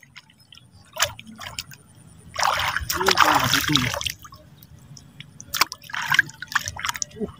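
Water splashing and dripping, with a longer splash from about two and a half to four seconds in and a few sharp clicks between.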